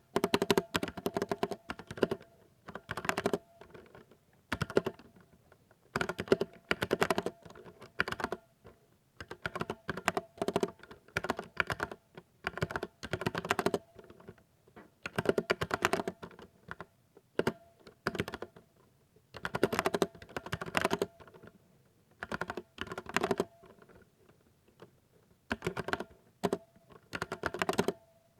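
Typing on a 60% mechanical keyboard: fast runs of key clicks lasting a second or so each, broken by short pauses.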